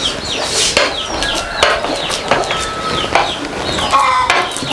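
Chickens clucking, a run of short calls falling in pitch, several overlapping and repeating throughout.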